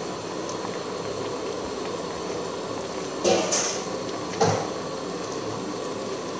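Pot of soup boiling with a steady hiss, and a ladle knocking and scraping against the metal pot twice, about three and four and a half seconds in, as the leaves are stirred into the broth.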